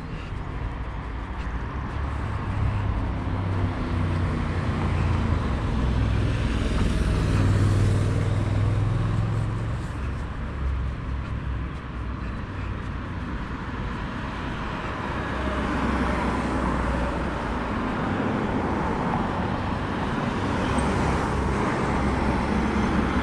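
Road traffic: cars passing one after another, engine rumble and tyre noise swelling and fading, loudest about eight seconds in.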